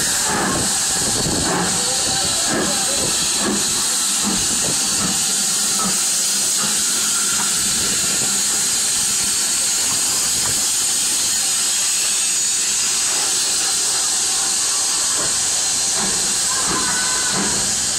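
Steady, continuous hiss of escaping steam from BR Standard Class 4 2-6-4 tank steam locomotive 80080.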